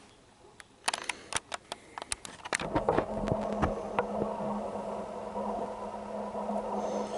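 A quick run of clicks from fingers typing on a tablet's on-screen keyboard. Then, from about two and a half seconds in, a steady mechanical hum with a low drone and a faint hiss sets in and holds.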